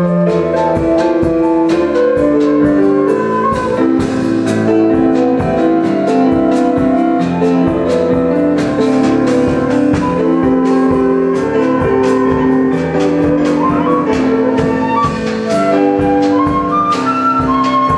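Concert flute playing a folk melody live, with a drum kit keeping a steady beat and a stage piano accompanying.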